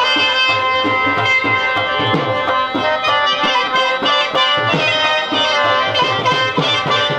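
Traditional music: tabla drumming in a steady rhythm, its low drum strokes bending down in pitch, under a sustained melody.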